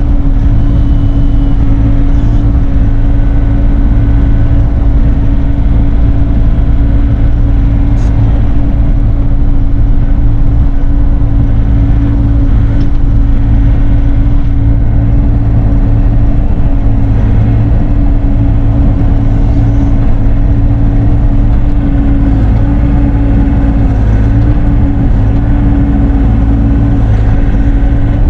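Bobcat E42 mini excavator's diesel engine running steadily at working speed, with a single sharp click about eight seconds in.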